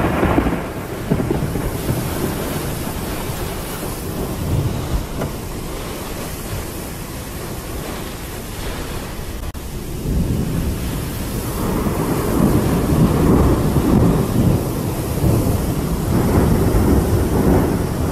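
Thunderstorm: a steady rush of heavy rain under rolling thunder, with the thunder rumbling louder again from about ten seconds in.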